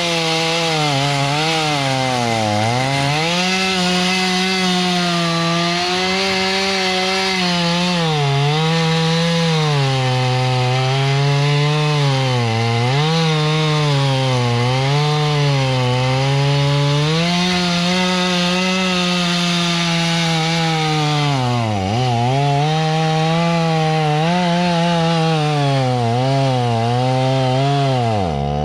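Two-stroke chainsaw running at high revs while cutting a tree. Its pitch sags repeatedly as the chain bogs into the wood and recovers as it frees up, with a deeper drop and recovery near the end.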